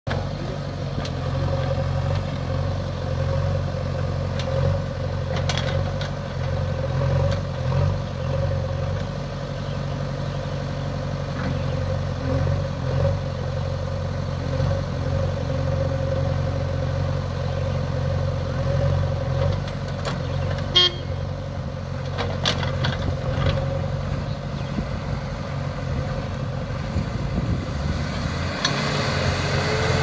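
Diesel engines of a JCB 3DX backhoe loader and a tipper lorry running steadily while the backhoe works, a steady low engine note with a thin whine over it. A single sharp knock about twenty seconds in.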